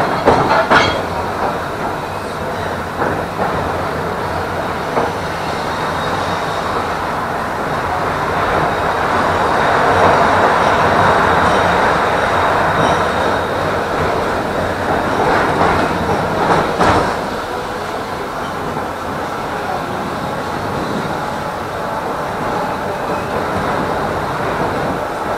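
Tram running along the track, heard on board: a steady rolling rumble from the wheels and rails that grows louder about ten seconds in, with a few sharp clacks of the wheels over rail joints a little past the middle.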